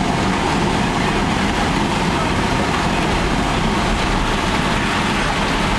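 Steady noise of a vehicle's engine and tyres heard from inside the cab as it drives down an underground mine tunnel.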